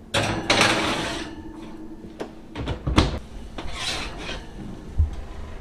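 Glass baking dish scraping and knocking against a wire oven rack as it is slid into the oven and later lifted out, with a sharp knock about three seconds in.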